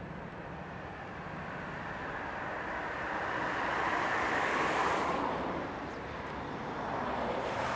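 A vehicle passing by: a rushing noise that swells to a peak about halfway through and fades, then builds again near the end as another approaches.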